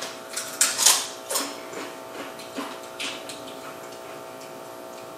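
Crunching of Doritos tortilla chips being bitten and chewed: a few crisp crunches in the first couple of seconds and another about three seconds in, over a faint steady hum.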